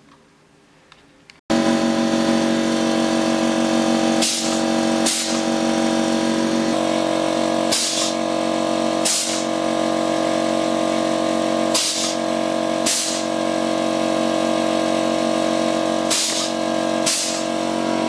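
Prototype pressing machine running: a steady mechanical hum that starts suddenly, with short bursts of hiss coming in pairs about every four seconds as it cycles.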